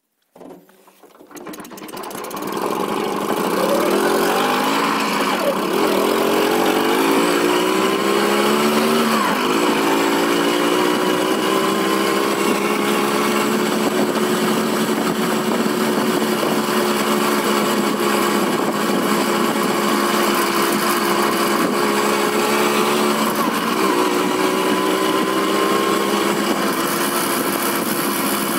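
1960s Sachs Komet 50cc moped's two-stroke engine pulling away and accelerating, its pitch climbing with two brief drops, then running steadily at a cruising speed of about 30 km/h.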